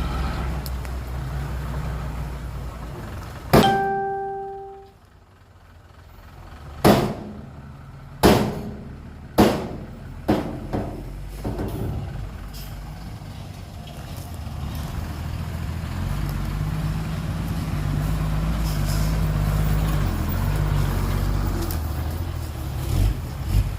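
Heavy diesel dump truck engine running, broken about three and a half seconds in by a loud metal clang that rings for about a second. Four more sharp bangs follow over the next few seconds, then the engine comes up again and runs steadily.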